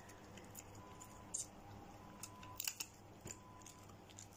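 Shetland sheepdog chewing a green chew stick held in a hand: a few faint, crisp crunches and clicks, irregularly spaced.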